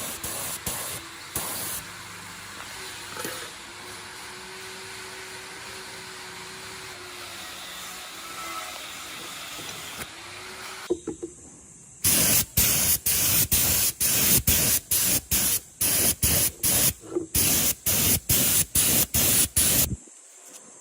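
Short hissing spray bursts, then a fainter steady hiss, then a quick run of loud short bursts, about two or three a second, that stop abruptly near the end.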